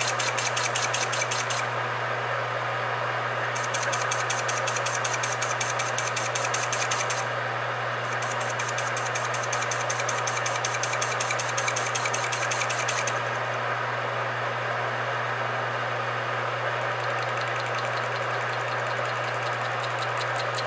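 Metal lathe running with a steady motor hum while the tool cuts the flywheel casting, with a fast, even, high-pitched ticking that stops and starts again several times.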